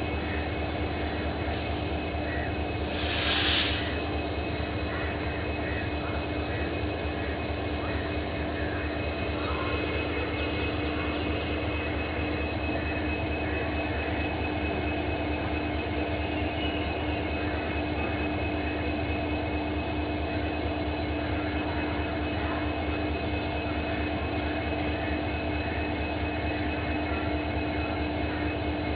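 EMD WDP-4D diesel-electric locomotive with its 16-cylinder 710 diesel engine running, a steady hum with a constant whine over it. About three seconds in there is a brief loud hiss.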